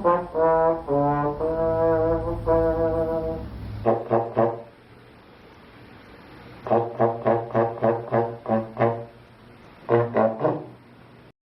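A brass instrument, trombone-like, playing a tune: a few held notes stepping in pitch, then three bursts of quick, short repeated notes with short pauses between.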